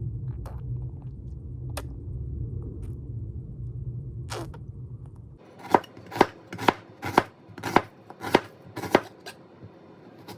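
A low steady hum with a few light clicks, which cuts off about halfway. Then a knife chops on a cutting board, seven quick strokes at about two a second and one more near the end.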